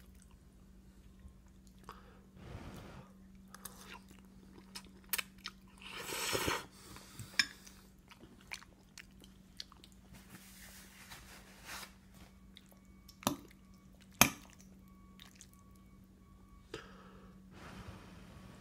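A toddler chewing a mouthful of pasta: soft wet mouth smacks and a few sharp clicks, over a steady low hum.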